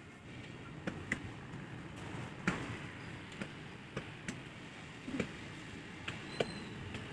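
Irregular light taps and clicks, about ten in all, the loudest about two and a half seconds in, as hands and a thin wire work wet cement into duck-shaped moulds.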